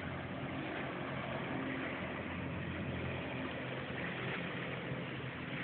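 Jet ski engine running steadily as the craft rides across the lake, heard as an even drone.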